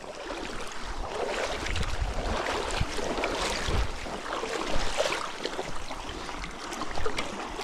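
Flowing river water rushing and splashing, with irregular low gusts of wind buffeting the microphone.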